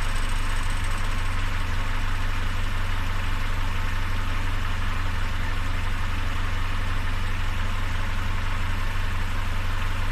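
Peugeot 407's EW10A 2.0-litre four-cylinder petrol engine idling steadily. It is recorded as an example of a strange noise the engine makes.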